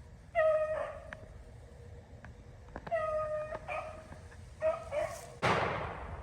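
Beagles baying on a rabbit's trail, three drawn-out bawls. Then a single shotgun shot near the end, with a trailing echo.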